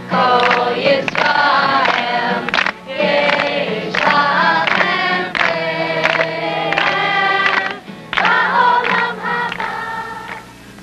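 A group of voices singing a song together in chorus, phrase after phrase, with brief breaks about three seconds in and again near eight seconds. A steady low hum runs underneath.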